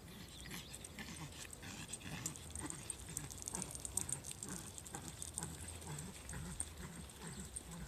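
A small dog panting quietly while being walked on a leash, with light irregular steps ticking on the pavement.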